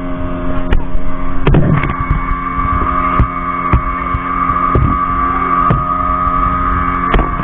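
Speedboat engine running at a steady pitch, a constant droning hum, with irregular sharp knocks about once a second over it.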